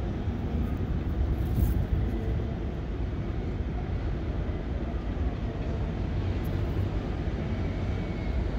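Car driving: a steady low rumble of road and tyre noise.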